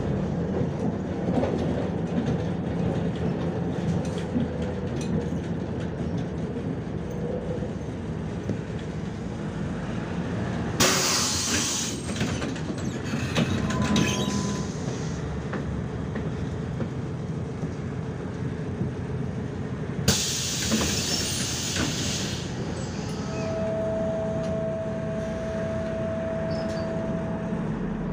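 Interior of a MAZ-105 articulated city bus on the move: steady engine and road rumble with rattling, broken twice by a sharp hiss of compressed air lasting a second or two, once about eleven seconds in and again about twenty seconds in. Near the end a steady whistling tone holds for about four seconds.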